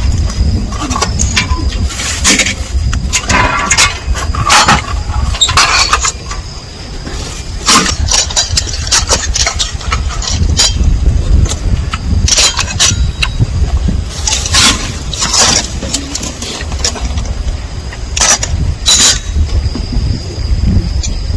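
Wind rumbling on the microphone outdoors by the sea, with scattered knocks and clinks throughout.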